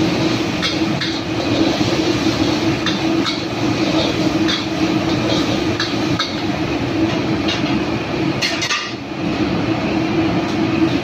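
Gas wok burner running with a steady rushing noise and hum, while a metal spatula clanks and scrapes against a steel wok every second or so during stir-frying. A brief louder hissing scrape comes about eight seconds in.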